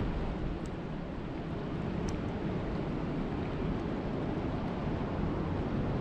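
Steady rain falling on a lake, an even hiss of water with a few sharper drop ticks, one just under a second in and another about two seconds in.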